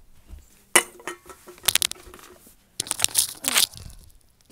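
Handling noise close to the microphone: a sharp knock just under a second in, a quick cluster of clicks, then a longer stretch of crinkly rustling.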